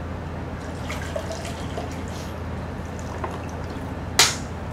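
Water poured from a plastic bottle into a drinking glass, trickling and dripping, over a steady low electrical hum. A single sharp click near the end.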